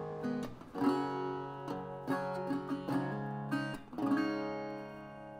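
Background music: acoustic guitar picking and strumming chords, the last chord ringing out and fading.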